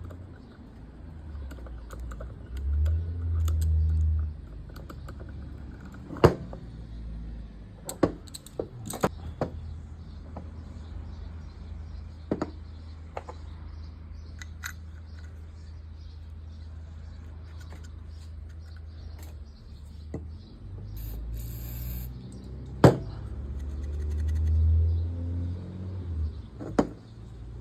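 Scattered sharp clicks and taps of small metal parts and tools being handled while a fishing reel is worked on, over a low rumble that swells twice.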